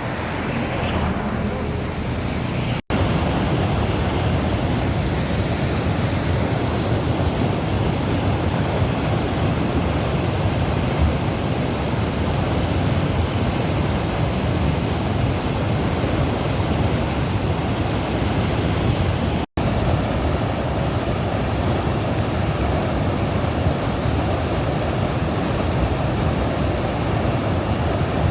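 A swollen river in flood rushing, a steady loud roar of water. It breaks off for an instant twice, about three seconds in and again past the middle.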